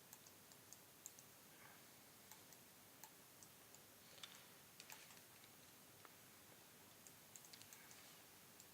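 Faint, scattered computer mouse clicks, irregularly spaced and sometimes in quick pairs, over near silence.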